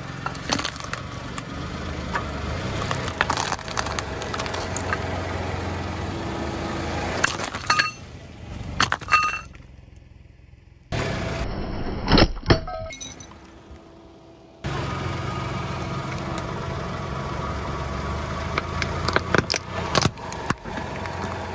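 Sunflower seeds in their shells cracking and crunching under a slowly rolling car tyre, as irregular clusters of sharp crackles. The car's engine runs steadily underneath. The sound drops away briefly twice near the middle.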